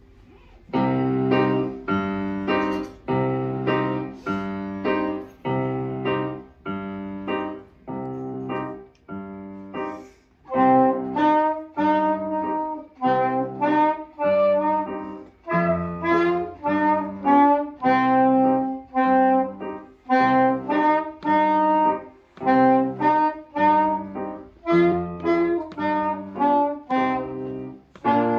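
A young student playing a tune on a wind instrument in separate, detached notes, with piano accompaniment. The music starts about a second in.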